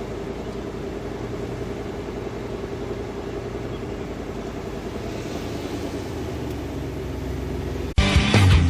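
Steady low hum of a vehicle engine running. About eight seconds in it cuts off suddenly and loud rock music comes in.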